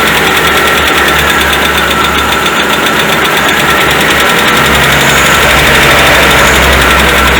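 Citroën C3's 1.6 16-valve four-cylinder engine running warm at a fast idle near 1000 rpm, steady, with a fast even ticking through it: the valve knock the car was brought in for.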